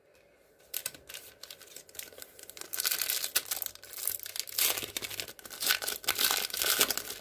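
Foil trading-card pack wrapper being torn open at its crimped seam and crinkled by hand, starting about a second in and getting louder and busier about halfway through.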